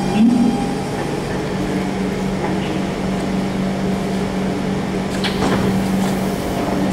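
A stationary SMRT C651 metro train humming steadily at the platform. Its doors slide open during the hum.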